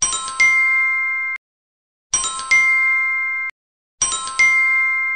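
An electronic chime sound effect, played three times about two seconds apart. Each time a quick run of bright notes leads into a held ringing chord, which cuts off abruptly after about a second and a half.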